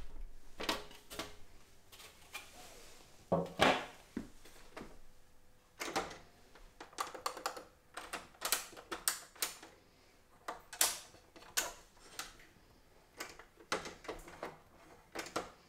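Scattered clicks and knocks of a Technics SL-J100R turntable's front push buttons being pressed and its top handled, loudest about three and a half seconds in. There is no motor or mechanism sound in answer: the turntable has no power, so its buttons do nothing.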